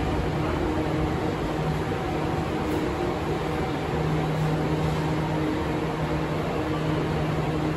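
Metro train standing at the platform, a steady mechanical hum and hiss with a low drone that drops out and returns every few seconds.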